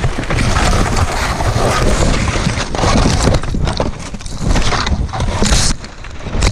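Wind rushing over a helmet-mounted camera's microphone, mixed with the hiss and scrape of skis in snow as a skier drops a steep couloir and falls. A sharp hiss flares near the end as snow sprays over the camera.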